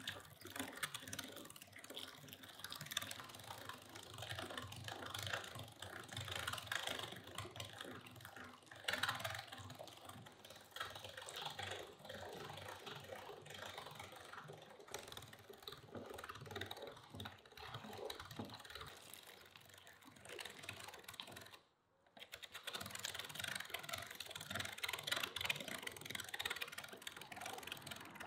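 Hand-cranked meat grinder mincing chunks of raw meat: a steady run of rapid clicks, rattles and crunching as the crank and auger turn. It drops out briefly about three-quarters of the way through, then carries on.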